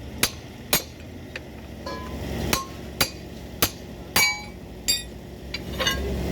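Hammer blows on metal, about a dozen sharp strikes at roughly two a second, each with a short ringing tone.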